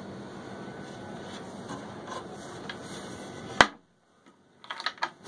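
Wooden boat-cabin cabinet doors and their push-button latch being worked over a steady background hum: one sharp click about three and a half seconds in, then a few lighter clicks and knocks near the end.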